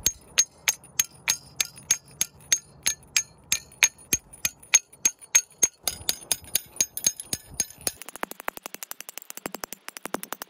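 A hammer striking a steel tuning fork (forked wedge bolt puller) to work an old split-shaft climbing bolt out of granite: steady blows about three a second, each a sharp metallic clink. In the last couple of seconds it changes to quicker, lighter taps.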